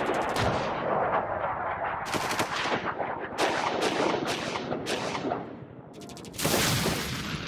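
Logo intro sound effects: a quick run of sharp hits and splats, each trailing off in a short rush of noise, with a bigger hit near the end.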